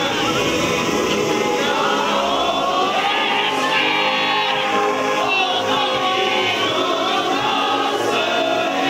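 A large crowd of Blaublitz Akita supporters singing a club chant together, many voices at once.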